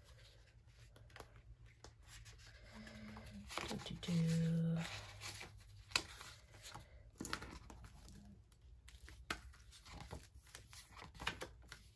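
Pages of a sticker book being flipped and handled, paper rustling and crinkling with small taps. A person hums two short low notes, the louder one about four seconds in.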